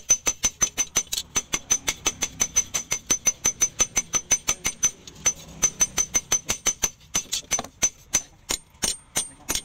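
Hand hammer beating a red-hot leaf-spring steel sword blade on a steel post anvil: rapid, ringing blows, about six a second, thinning out briefly past the middle before picking up again.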